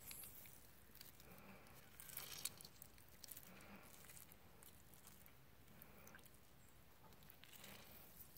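Faint wet squishing and small clicks of a lime half being squeezed by hand.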